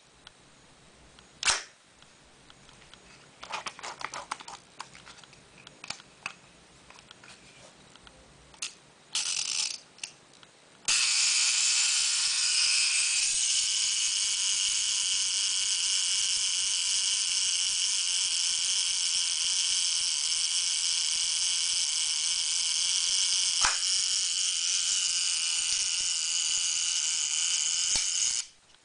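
FED-2 rangefinder camera mechanism: a sharp shutter click and small mechanical clicks in the first few seconds, then a long, steady whirring buzz from the camera that runs for about seventeen seconds and cuts off suddenly near the end.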